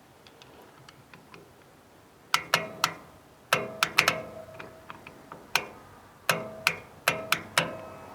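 Sharp metallic clicks and clinks, about a dozen in quick groups of two to four, each with a brief ring: a metal jumper or tool being touched against the winch solenoid's terminals.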